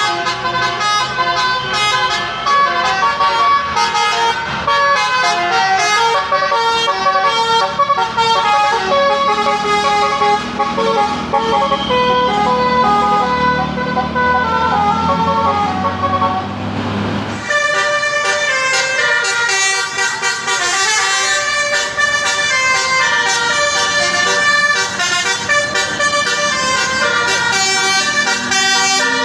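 Bus 'telolet basuri' musical horns playing fast melodic tunes of quick stepped notes, over a bus engine whose pitch rises under load. The sound changes abruptly a little past halfway, and another horn tune follows.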